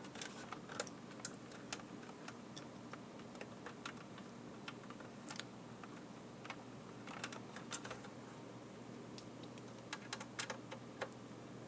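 Faint, irregular clicks and taps of a screwdriver and small camera parts being handled during reassembly, with a few sharper clicks about a second in and again near the end.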